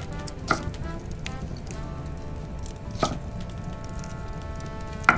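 A few sharp strikes at uneven intervals, several leaving pitched tones that ring on for a second or two, over a steady low hum.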